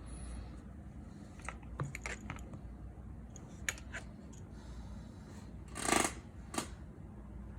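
Light clicks and taps of small tools and phone parts being handled during a repair, scattered through the first few seconds, with a louder brief scrape or rustle about six seconds in.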